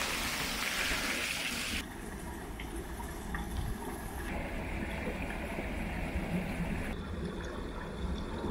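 Water rushing and trickling through and over the closed gates of a canal lock into the lock chamber. The sound turns abruptly quieter and duller about two seconds in.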